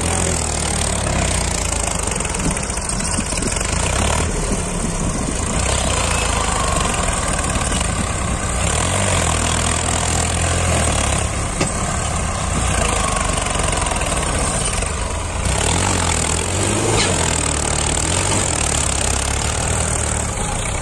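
New Holland 3630 diesel tractor engine labouring under heavy load as it drags a levelling blade through sand, its note rising and falling, with other tractor engines running alongside.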